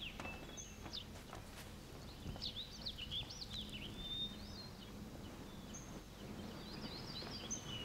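Faint birdsong: scattered short high chirps and whistles, some sliding up and down, over quiet outdoor background noise.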